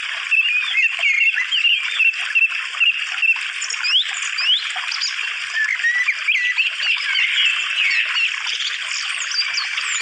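Many birds chirping and singing together in a dense chorus of short whistled notes and quick rising and falling calls, over a steady background hiss.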